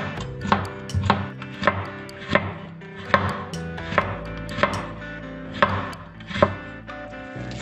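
Cleaver-style kitchen knife chopping a carrot into matchsticks on a wooden cutting board: a steady run of sharp knocks, about one to two a second. Soft background music plays underneath.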